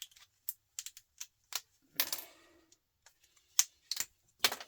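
Small metal scrap parts from a fluorescent light fitting being handled, giving an irregular run of sharp clicks and clinks. There is a fuller clatter about two seconds in and the loudest strikes come near the end.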